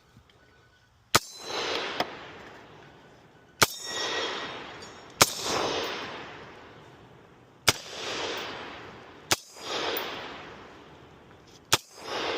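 Six single gunshots a second and a half to two and a half seconds apart. Each crack is followed by a long echo that swells and rolls back off the valley.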